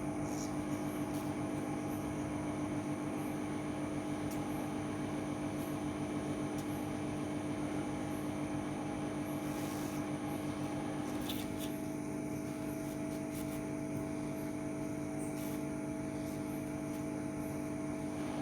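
Quick 850 hot-air rework station blowing, a steady hum with a hiss of air. A few faint clicks sound over it.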